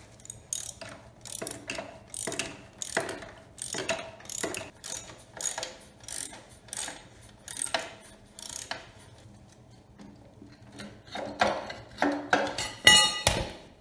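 Ratchet wrench loosening the bolts that hold the pressure-washer pump housing and engine to the frame, its pawl clicking in short repeated strokes about once a second. A louder metal clatter comes near the end.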